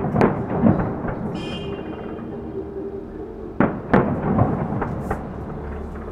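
Fireworks going off at a distance: sharp booms of aerial shells bursting in a quick cluster at the start and another cluster about three and a half to four and a half seconds in, with rumbling and crackle between the bangs.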